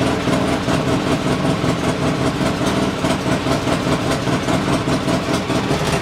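Polaris Sportsman 600 ATV's twin-cylinder four-stroke engine idling steadily at about 1,170 rpm on a newly fitted carburettor. That is a little high for its roughly 1,100 rpm idle.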